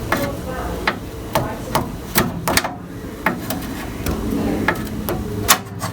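A hand tool knocking against something hard: about a dozen sharp knocks at an irregular pace.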